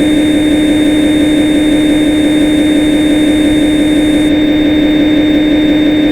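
Simulated CNC lathe machine sound from the Swansoft CNC simulator software: a loud, steady electric hum with a high whine, one unchanging pitch. A high hiss in it cuts out about four seconds in.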